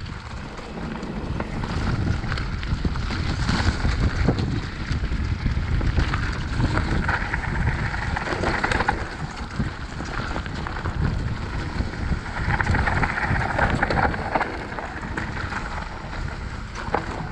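Wind buffeting the microphone of a mountain bike descending a leaf-covered forest singletrack, over the tyres rolling and crackling through dry fallen leaves, with scattered knocks and rattles from the bike.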